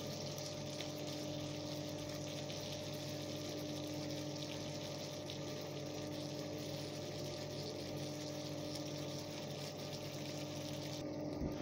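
A steady mechanical hum with an even hiss behind it, unchanging throughout, the background of the kitchen while the finished chicken sits in the wok.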